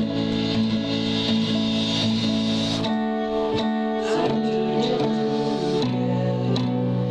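Guitar-led instrumental music from a home-made demo song, with sustained chords that change a few times and no singing.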